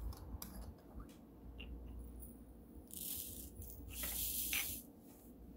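Diamond painting drills (small plastic resin beads) rattling as they are poured and shaken in a tray: a few light clicks in the first second, then two short rattling bursts about three and four seconds in.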